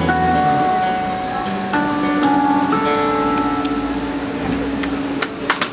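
Acoustic guitar playing the closing bars of a song, with held notes left to ring and changing every half second or so. A few sharp clicks come near the end.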